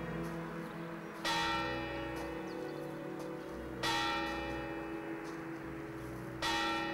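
A bell tolling slowly: three strikes about two and a half seconds apart, each ringing on until the next.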